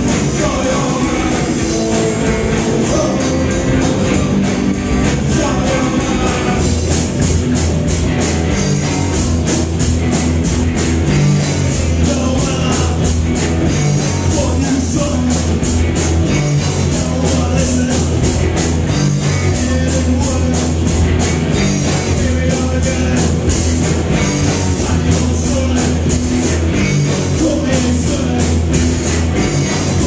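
Live rock band playing loud: electric guitars, bass guitar and a full drum kit, with a man singing. The drums' cymbals come in hard with a steady beat about seven seconds in.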